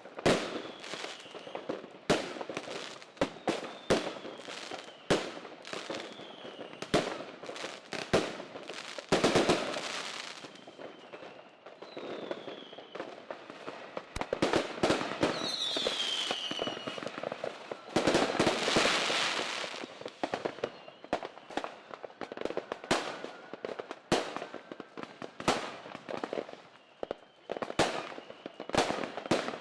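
Fireworks and firecrackers going off: many sharp bangs at irregular intervals with stretches of crackling, and a couple of high whistles falling in pitch about halfway through.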